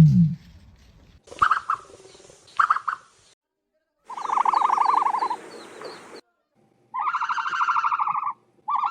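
The tail of a deep ostrich boom dies away at the start. Then comes a run of higher, buzzy, rapidly pulsing bird calls: two brief ones, a longer one about four seconds in, and two more near the end.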